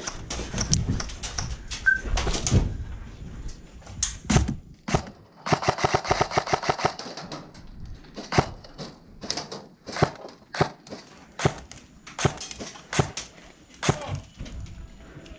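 Airsoft guns firing: a rapid burst of about a second and a half of evenly spaced shots, with single sharp cracks and clicks scattered before and after. Rustling and shuffling of movement in the first few seconds.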